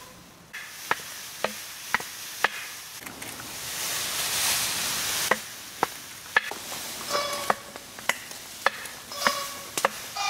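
Sharp knocks struck in a steady rhythm, about two a second, with a pause in the middle that is filled by a rushing hiss swelling and fading. Near the end a few strokes carry a short ringing tone.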